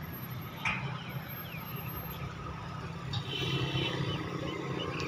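A road vehicle's engine running steadily at a low pitch, with a short click under a second in.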